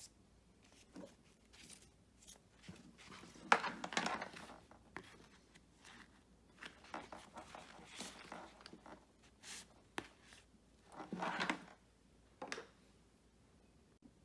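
Faint rustling and scraping of nylon backpack straps and webbing loops being handled, with a few light clicks, as a tool is pushed through the sternum-strap loops.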